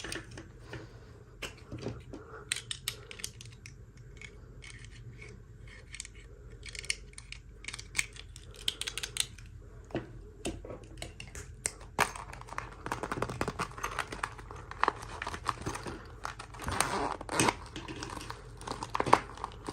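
Toy doll packaging being handled and opened: scattered sharp clicks and snips, becoming a denser run of handling noise about twelve seconds in.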